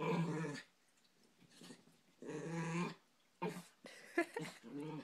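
Miniature pinscher growling in several short bursts: a play growl while wrestling with a cat, not a real fight.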